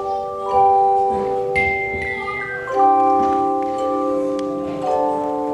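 Tone chime ensemble playing slow, sustained chords. The notes ring on and overlap, with new chimes struck every second or two to change the chord.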